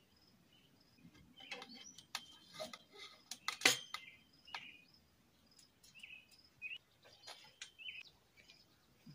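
Light metal clinks and knocks as steel greenhouse-frame tubes are handled and fitted together, the loudest a little under four seconds in. Small birds chirp now and then.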